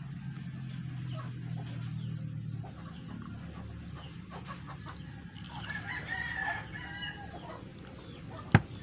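Chickens calling, with one longer call about six seconds in, over a low steady hum; a single sharp click near the end.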